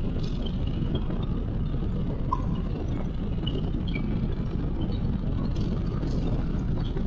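Stream current heard underwater through a waterproof camera: a steady, muffled low rumble, with a few faint short high blips.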